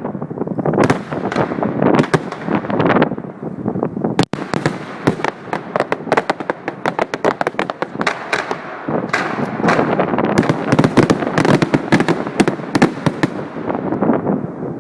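Fireworks display: a dense, continuous barrage of cracks and bangs, with the sound dropping out for an instant about four seconds in.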